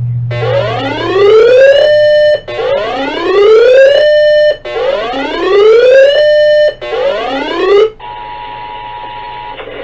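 Electronic siren 'whoop' alert tones: three rising wails, each climbing for about a second and a half, holding briefly and cutting off, and a fourth cut short. About eight seconds in they give way to the steady two-tone Emergency Alert System attention signal, sounding thinner and narrower.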